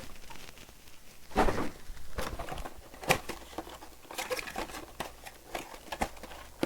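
Plastic wrap crinkling and thin cardboard tearing in irregular bursts, with sharp clicks, as a Topps Chrome trading-card mega box is unwrapped and opened by hand.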